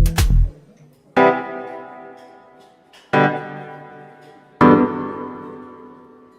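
Music: a drum-and-bass beat cuts off about half a second in, then three piano chords are struck one after another, each left to ring and fade away.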